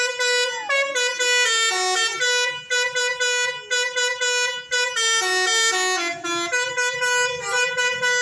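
A tour bus's Basuri telolet horn playing a melody. Loud horn notes step up and down with short breaks between phrases, and the tune repeats.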